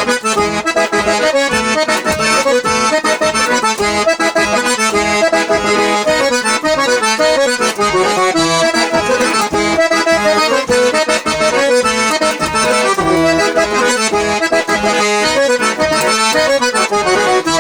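Accordion playing a fast instrumental solo of a vaneira, full of quick runs and flourishes, over a steady dance beat.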